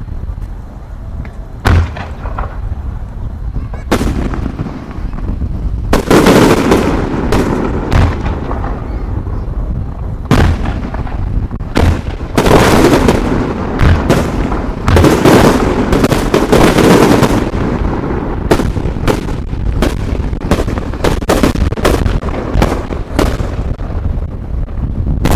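Fireworks going off: a few separate sharp bangs at first, then from about six seconds in a dense barrage of bangs and crackling.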